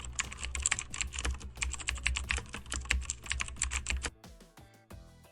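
Computer keyboard typing sound effect: a rapid run of key clicks that stops about four seconds in, over soft background music.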